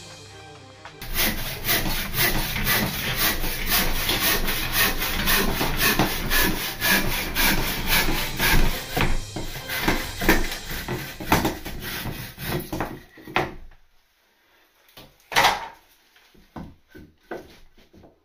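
Hand saw cutting through a length of softwood timber in quick, even back-and-forth strokes. The sawing stops about 13 seconds in, followed by a few knocks, one of them loud.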